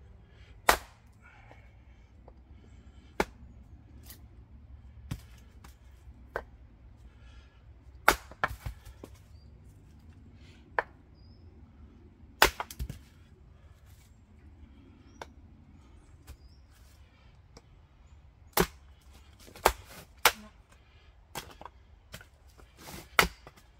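Axe splitting firewood on a wooden chopping block: sharp single chops at irregular intervals, about a second to a few seconds apart, some followed by a brief clatter of split pieces. Near the end the strokes come quicker and lighter as smaller pieces are split down.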